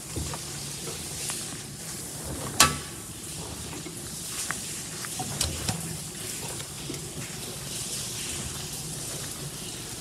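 Miele PT 5136 tumble dryer running with its door open: a steady rushing hiss and low hum from the drum and fan, broken by a few sharp clicks and knocks of hard bits in the laundry against the drum, the loudest about two and a half seconds in.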